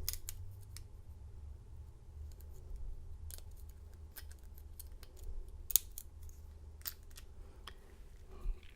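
Lock pick and tension wrench working the pin tumblers of a Master Lock U bike lock during single pin picking: scattered light metallic clicks, the loudest a little past halfway.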